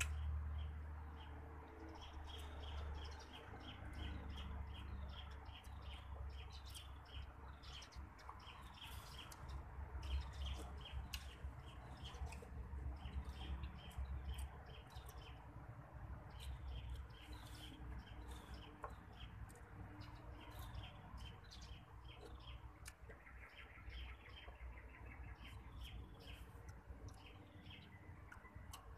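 Small birds chirping: short high notes repeated in quick runs, over a faint low rumble.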